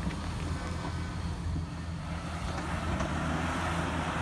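Jeep Cherokee XJ's engine running steadily under load as it crawls up a rock ledge, with tyres scrabbling on rock and dirt growing louder about three seconds in.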